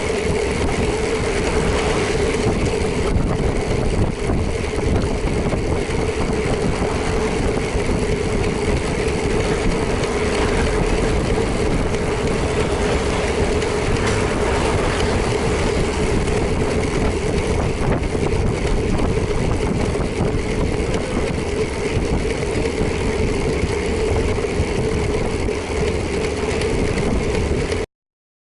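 Motorcycle engine running steadily under the wash of wind and road noise while riding, with a constant drone; the sound cuts off abruptly near the end.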